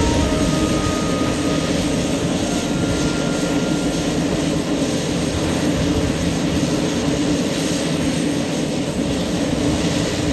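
The Pilatus PC-12 NGX's single Pratt & Whitney PT6E-67XP turboprop is running steadily on the ground with its propeller turning. It makes an even, unchanging drone.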